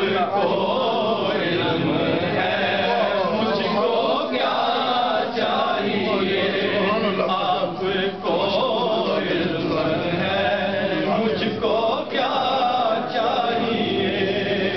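Men's voices chanting together, unaccompanied, in the sung style of an Urdu naat.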